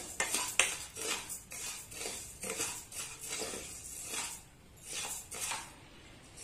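A spoon stirring and scraping dry-roasting parboiled rice around a metal pan, with a gritty rustle of grains at each stroke, about two strokes a second. The strokes fade over the last second. The rice is nearly done, roasted until the grains puff.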